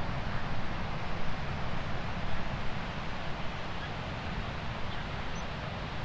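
Sea surf: waves breaking and washing up the beach, a steady rushing noise with a deep rumble underneath that swells a little in the first couple of seconds.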